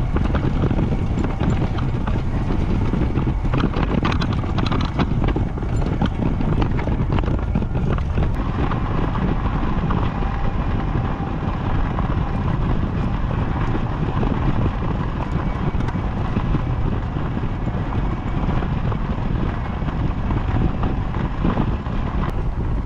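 Tramper TWS electric all-terrain mobility scooter on the move, its tyres crunching over rough ground and gravel, with wind buffeting the microphone. A faint steady whine sits under the noise, plainer in the second half.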